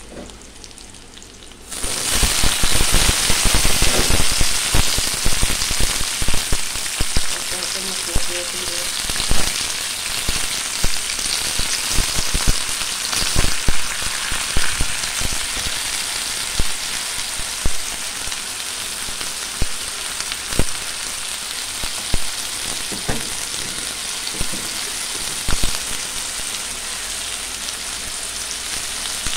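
Vegetables (flat beans, potato, tomato and cauliflower, dusted with spice powder) sizzling in hot oil in an aluminium karahi, with frequent crackling pops. The sizzle starts suddenly about two seconds in and is loudest for the first several seconds, then settles to a steadier hiss with occasional pops.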